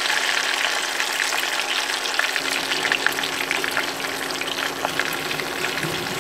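Breaded chicken pieces deep-frying in hot oil in a stainless steel pot: a steady sizzle thick with small crackles as the pieces are turned with chopsticks. This is the second fry, which crisps the crust.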